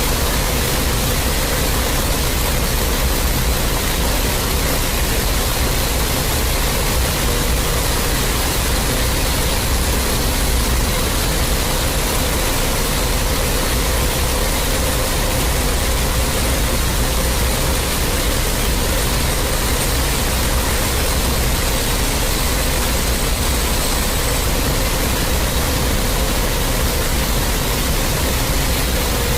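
Loud, steady static-like noise, spread evenly from a deep rumble up to a high hiss. A faint steady tone runs through it, and a faint high whistle slowly falls in pitch and fades out about 24 seconds in.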